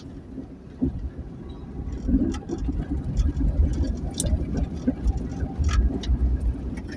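Ambulance driving along, a steady low rumble of engine and road noise with a few short knocks and rattles.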